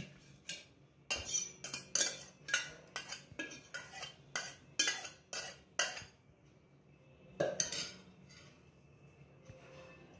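Steel spoon scraping and clinking against the inside of a stainless steel pot, a quick run of sharp strokes for about six seconds and a short burst again near the end: the last of the curdled milk (chhena) being scraped out onto a straining cloth.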